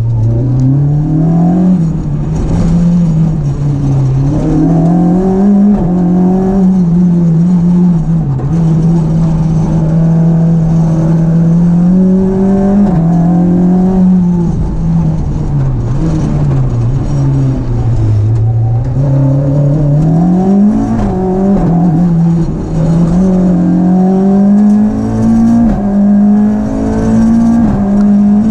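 Renault Clio 172 rally car's 2.0-litre four-cylinder engine driven hard, its pitch climbing under acceleration and dropping repeatedly at gearshifts and lifts.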